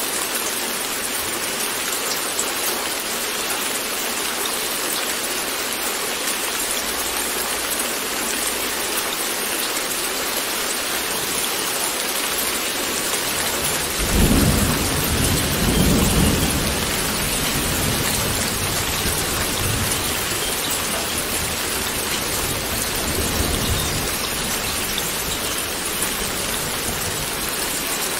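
Steady rain falling, with a thunderclap about halfway through that rolls on as a low rumble for several seconds before fading.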